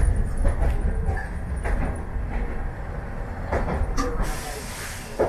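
Hankai Tramway streetcar running along its own track, heard from inside the car near the front: a steady low rumble from the running gear with irregular clacks as the wheels cross rail joints, and a brief hiss about four seconds in.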